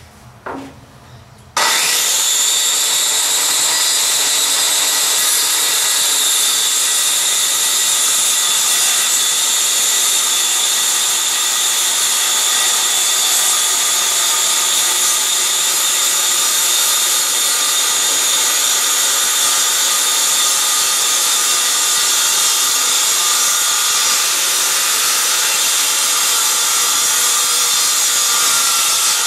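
Electric power saw running and cutting through MDF board: a steady, loud high-pitched whine that starts suddenly about a second and a half in and stops at the end, after a short knock just before it.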